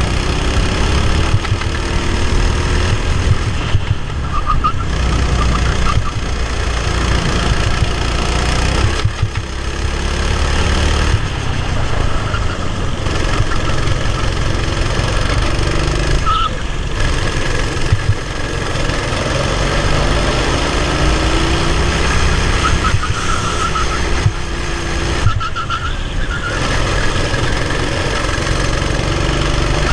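Racing kart engine heard from on board, running hard with its pitch rising and falling with the throttle. It dips briefly about three times.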